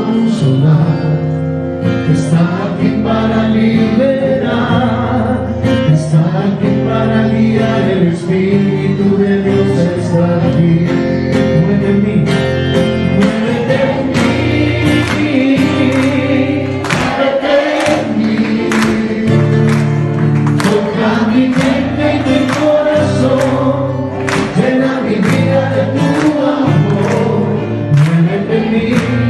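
Music: a Spanish-language worship song with solo and choir singing over a steady beat.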